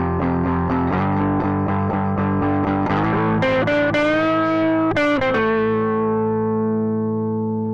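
Outro music on a distorted electric guitar: a riff of quick repeated picked notes, then a few bent notes, ending on a held chord that rings out.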